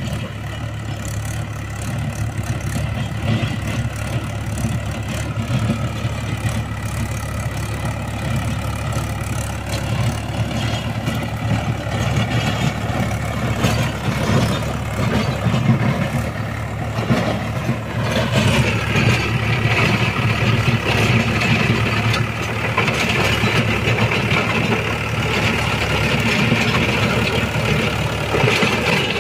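Mahindra 475 DI tractor's four-cylinder diesel engine running steadily under load while its Shaktiman rotavator churns the ground. From about two-thirds of the way in, the sound turns louder and brighter.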